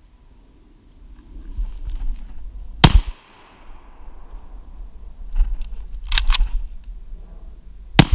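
Hunting rifle fired twice about five seconds apart, each shot a sharp crack followed by a long echo rolling off through the woods. A quick pair of sharp cracks comes between the two shots.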